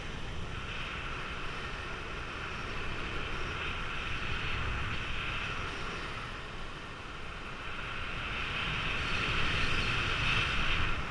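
Rushing wind buffeting a camera microphone in fast speedwing flight: a steady rumble and hiss that eases about seven seconds in and builds again near the end.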